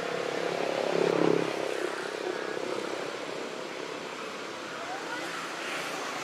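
A distant engine hum over a steady outdoor background, swelling briefly about a second in.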